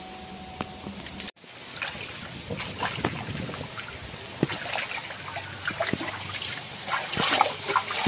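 Hands sloshing and splashing in pond water while washing, with many small splashes and trickles.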